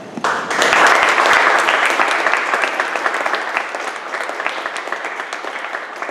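Audience applauding a speaker's introduction. The applause starts abruptly, peaks within the first second or two, then tapers.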